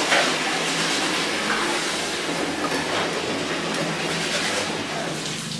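A steady rushing hiss, with a few light clicks as a stack of plastic milk-strainer discs is handled.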